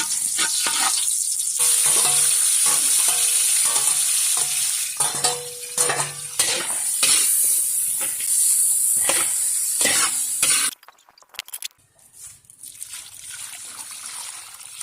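Pancit noodles sizzling as they are stir-fried in a pan, with the spatula repeatedly scraping and knocking against the pan. The sizzling stops abruptly about eleven seconds in, leaving only a few quieter knocks.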